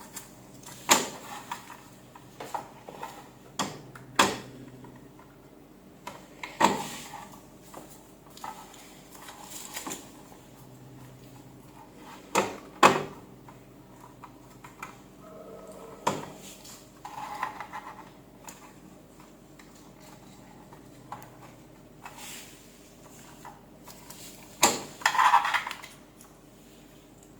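Scattered clicks, knocks and light clatter of hard objects being handled and set down, with a faint steady hum underneath.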